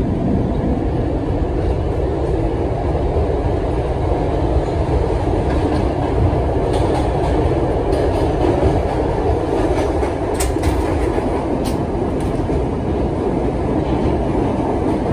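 Budd R32 subway car running on the track, heard from inside the car: a steady, loud rumble and rattle of wheels and running gear. A few sharp clicks come about ten to twelve seconds in.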